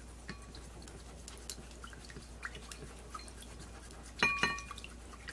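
Chopsticks stirring a ponzu and mayonnaise sauce in a ceramic bowl: faint wet clicks and scrapes, then two ringing clinks of the chopsticks against the bowl about four seconds in.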